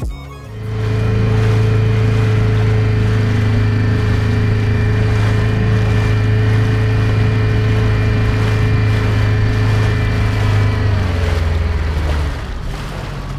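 Mercury 6 hp outboard motor pushing an inflatable dinghy, running steadily under way. About eleven seconds in its note drops as the throttle is eased back, and it goes quieter.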